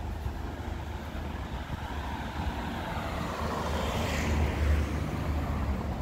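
A small car driving past at close range, its engine and tyre noise building to a peak about four seconds in.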